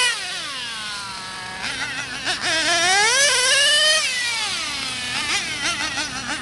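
Gas-powered RC car's small two-stroke engine winding down off the throttle, blipping twice, then revving up for about a second and a half and easing off again.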